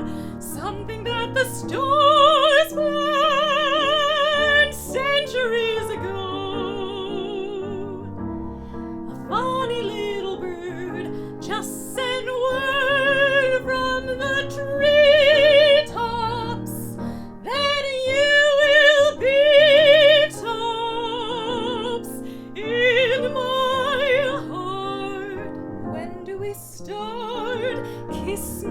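A mezzo-soprano singing in classical, operatic style, holding long notes with wide vibrato, over instrumental accompaniment.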